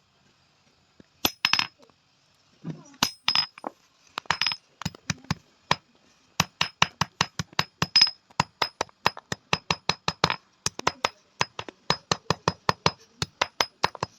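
Hand hammer striking an iron roti tawa being shaped by hand: sharp, ringing metallic strikes, a few spaced pairs at first, then a fast steady run of about four to five blows a second from about halfway.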